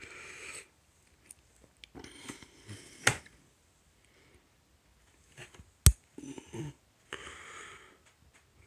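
Hand tools being handled: two sharp clicks, one about three seconds in and a louder one just before six seconds, with short soft breaths or sniffs between them.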